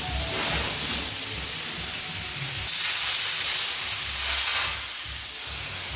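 Air plasma cutter hissing steadily as it cuts through the steel of a smoker body, easing off a little for the last second or so.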